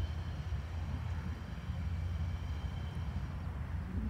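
Diesel freight locomotives approaching from a distance, a steady low rumble, with a faint high whine that fades out about three seconds in.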